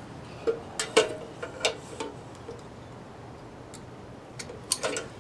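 Small, sharp clicks and light metallic taps from hand tools and a metal lantern being handled while a wire's shield is split. The clicks are irregular: several come from about half a second to two seconds in, and another few come shortly before the end.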